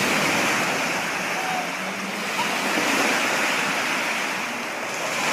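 Steady rush of water alongside a moving boat, mixed with wind noise on the microphone.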